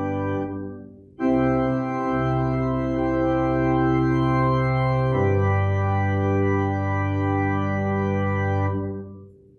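Church organ playing held chords: one chord fades, a new one sounds about a second in, the harmony changes about five seconds in, and the final chord dies away near the end.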